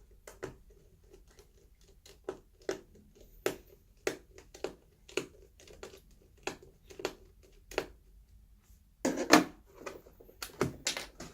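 Scattered small clicks and taps of a screwdriver and tiny screws being taken out of a laptop's bottom panel, with a louder clatter about nine seconds in and again near the end.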